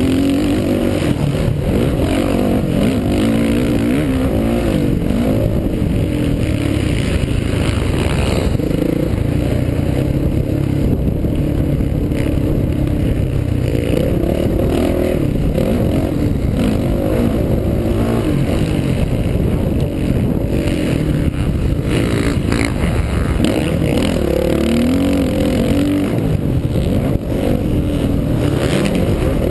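Dirt bike engine ridden hard on a motocross track, its pitch climbing and dropping over and over as the rider accelerates, shifts and backs off for corners and jumps.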